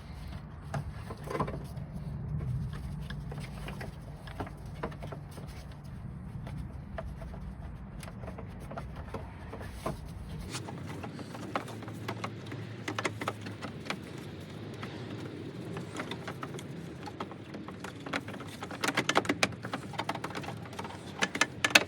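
Scattered small clicks and knocks of handling, growing denser and louder near the end, over a steady low hum that cuts off abruptly about halfway through.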